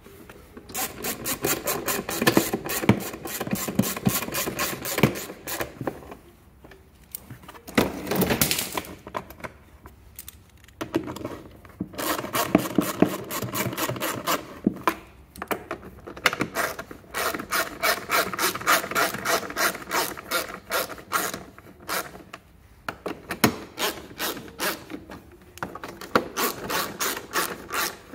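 Hand ratchet clicking in quick runs of several seconds, with short pauses between them, as it drives the bolts holding a scooter's plastic under-seat storage bin.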